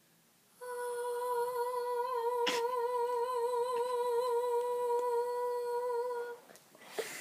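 A young girl's voice holding one long, high sung note for about six seconds, with a slight wobble in the pitch: her attempt at the best high note.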